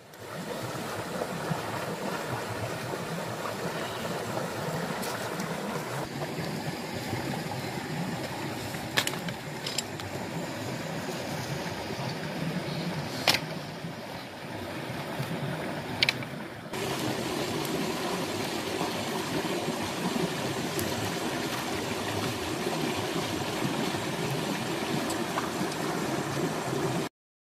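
Steady rush of stream water, with a few sharp knocks scattered through it.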